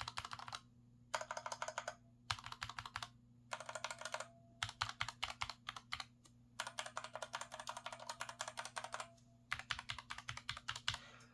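Mechanical keyboards with tactile brown switches being typed in about eight quick bursts of rapid keystrokes with short pauses between them. The typing is on the low-profile Redragon K618 and on a taller keyboard with the same brown switches. One keyboard has a higher-pitched clack and the other a lower one.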